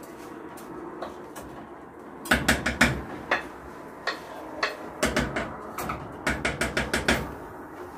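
A wooden spatula knocking against an enamel pot as rice is spread in a layer for plov. The knocks begin about two seconds in, some single and some in quick runs of several.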